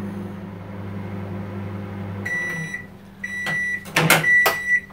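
Defy microwave oven running with a steady low hum, which stops a little over two seconds in. Then three beeps mark the end of the heating cycle, with sharp clicks near the end as the door-release button is pressed.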